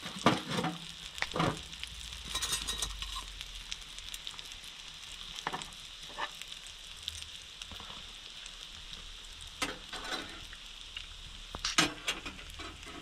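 Fried eggs and meat patties sizzling in oil in a frying pan on a woodstove top, a steady hiss. A metal utensil clicks and knocks against the pan several times, most sharply near the start and about two seconds before the end.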